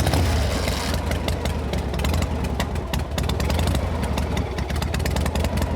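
Tuk-tuk (auto-rickshaw) engine running steadily: a low hum with a dense, rapid rattle.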